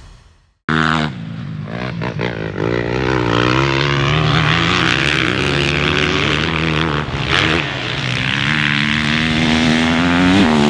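Dirt bike engine revving hard, its pitch wavering up and down and climbing briefly near the end. It cuts in suddenly after a moment of silence.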